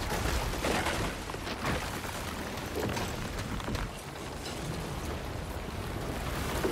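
Ice cracking and grinding and heavy chains straining as a dragon's body is hauled out through the ice of a frozen lake: a series of irregular crunches over a low rumble.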